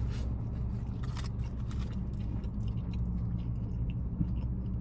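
A person chewing food, with faint soft crunches, over the steady low rumble of a car cabin.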